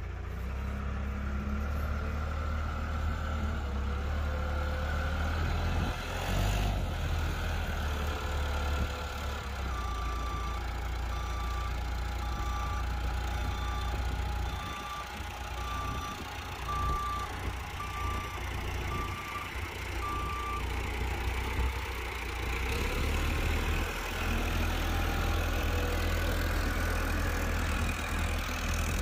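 Nasco Auto Handler rough-terrain forklift engine running as it carries a car on its forks. From about ten seconds in, its reversing alarm gives about ten short beeps, roughly one a second.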